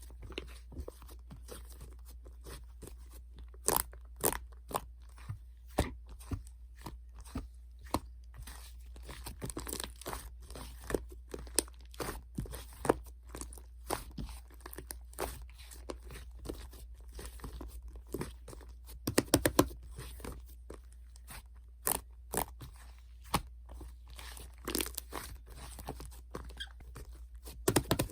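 Crunchy chewing: something hard being bitten and chewed, with many irregular crunches, a few louder ones in quick clusters, over a steady low hum.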